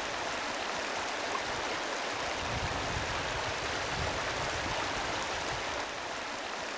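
Shallow moorland stream, the upper River Calder, running over stones: a steady wash of flowing water.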